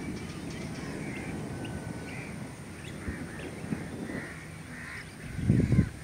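Crows cawing now and then over a low rumble of wind, with a gust of wind buffeting the microphone near the end.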